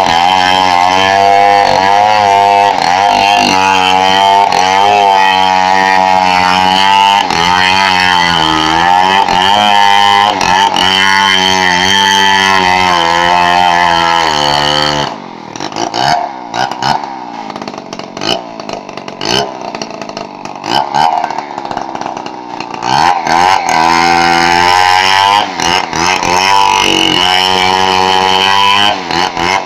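Petrol chainsaw running at high revs while sawing timber into planks, its pitch dipping and recovering as the cut loads the engine. About halfway through it goes much quieter for about eight seconds, then revs back up and carries on.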